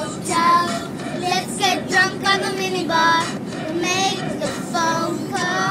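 A child singing in a high voice, a string of short phrases gliding up and down in pitch.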